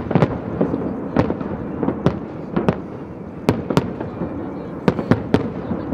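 Aerial firework shells bursting in quick, irregular succession: about a dozen sharp bangs over six seconds, with a continuous din of further bursts between them.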